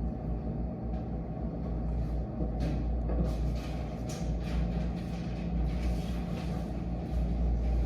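Steady low background rumble, with a run of light quick taps and scratches in the middle.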